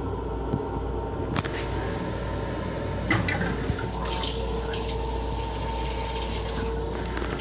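Water running from the faucet of an LIRR M7 railcar restroom and splashing into the sink, over the steady hum of the moving train. A sharp click comes about a second and a half in.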